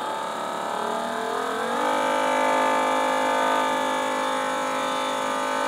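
Small electric motor, driven by a PWM controller, spinning up with a rising whine over about the first two seconds, then running at a steady pitch.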